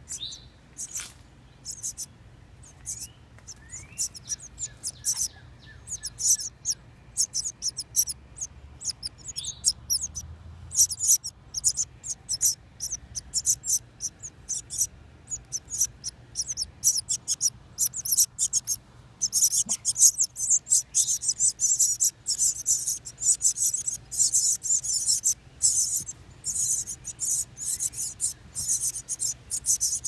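Baby birds in a nest box giving rapid, very high-pitched calls, many a second, which grow louder and more continuous a little past halfway. A few short, lower whistled notes come through early on.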